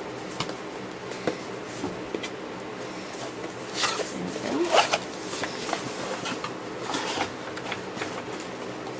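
Small cardboard box and its packaging being opened by hand: scattered rustling, scraping and tearing, loudest in a few rasping rips about four to five seconds in.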